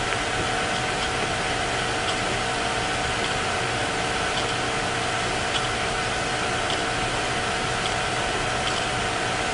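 Steady background hiss with a faint steady hum, and a few faint clicks.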